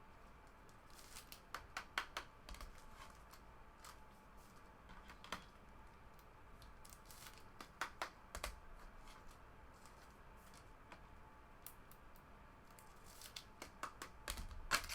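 Faint scattered clicks and rustles of trading cards and their packaging being handled, with small clusters of sharp clicks in the first few seconds, around the middle and near the end.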